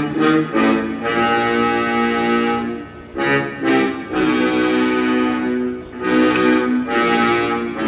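Instrumental music: held keyboard chords played in phrases with short breaks between them, the intro of a hip hop track before the rapping comes in.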